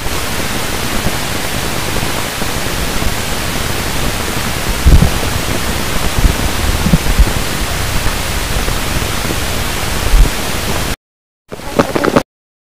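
Steady static hiss, like white noise, with a few low thumps in the middle. It cuts off sharply about eleven seconds in, and a short loud burst of another sound follows half a second later.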